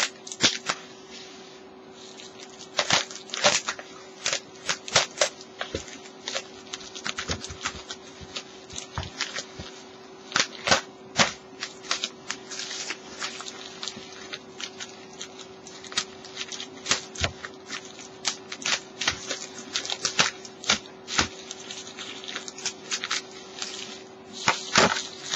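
Bubble wrap crinkling and crackling in irregular bursts of sharp clicks as it is cut and pulled off a parcel by hand.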